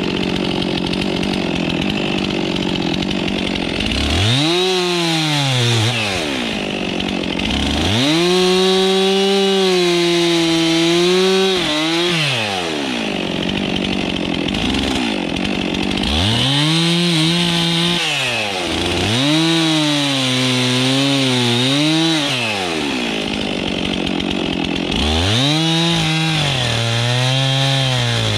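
Stihl MS 362 two-stroke chainsaw with a 45 cm bar cutting through the trunk and branches of a felled conifer. It revs up from idle to full throttle five times, and the engine note wavers while it cuts. Between cuts it drops back to idle.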